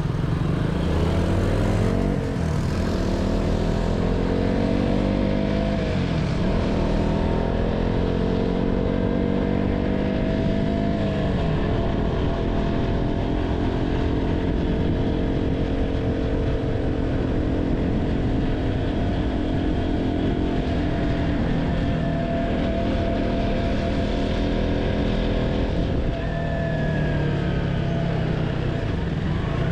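KTM 200 Duke's single-cylinder four-stroke engine pulling up through the gears: its pitch climbs and drops at three upshifts in the first ten seconds or so, then holds steady at cruising speed, eases off briefly near the end and starts climbing again.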